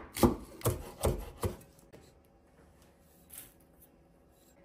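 Cleaver chopping green onions on a wooden cutting board, about two strokes a second; four chops that stop about a second and a half in. A brief soft sound follows near the end.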